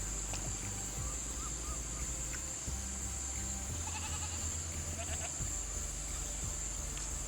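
Steady high-pitched drone of an insect chorus, with a few short animal calls around four and five seconds in.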